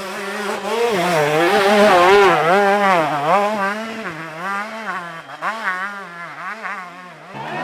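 Classic enduro motorcycle engine revving up and down in quick repeated swells as it is ridden over trail terrain, loudest about two seconds in and then growing quieter.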